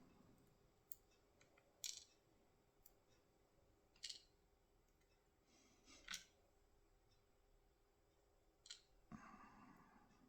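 Faint, scattered small metallic clicks of tubular lock parts being handled while the lock is taken apart, about half a dozen spread over several seconds.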